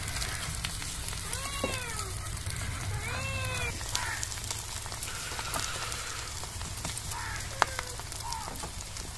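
A cat meowing twice, each call rising then falling in pitch, about a second and a half apart, over the steady sizzle of an egg omelette frying on an iron tawa.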